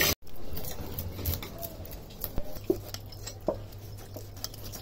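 Light, scattered clicks and taps of hands handling a raw, wet hilsa fish.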